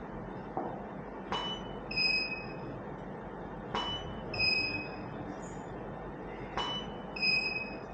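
A camera flash firing three times, about two and a half seconds apart. Each shot is a sharp click with a short beep, followed about half a second later by a second, slightly longer electronic beep, the flash's ready signal.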